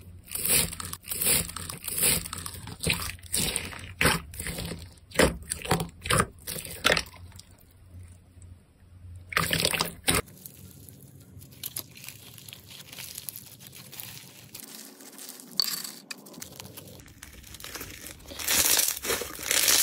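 Hands pressing and kneading clear green slime under a layer of white foam beads, giving a run of sharp crunchy, crackling squishes. After about ten seconds it turns to quieter, wet squishing, and near the end a fluffy white slime is stretched with a loud crinkly rustle.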